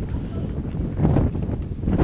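Wind buffeting the microphone: a gusty low rumble that swells about a second in.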